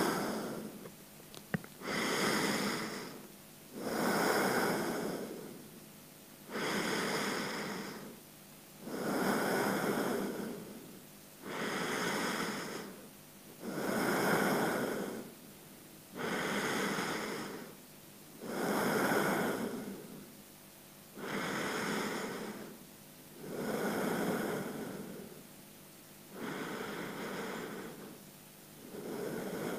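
A person breathing slowly and evenly at rest, each breath clearly audible on a close microphone, about one every two and a half seconds with short quiet gaps between.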